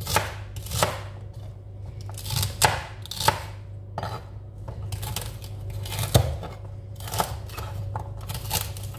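Kitchen knife chopping celery stalks on a plastic cutting board: a dozen or so sharp, crisp cuts at an uneven pace, each ending in a knock on the board. A steady low hum lies underneath.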